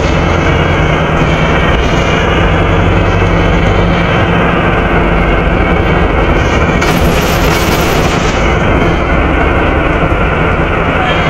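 Volvo B7RLE bus engine and its cooling fan running loud and steady, heard from inside the saloon, with a short burst of hiss about seven seconds in.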